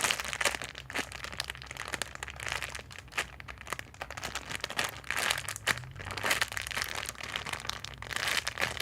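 Plastic packaging crinkling and crackling in irregular bursts as a cream-puff squishy toy is handled.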